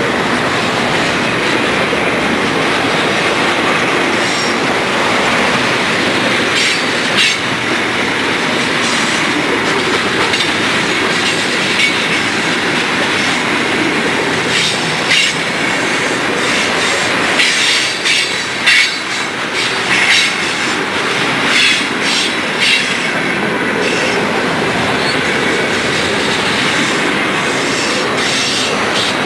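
Freight cars rolling past close by: a steady rumble of steel wheels on rail, with sharp clicks and clacks as the wheels cross rail joints, coming thickest in the middle stretch.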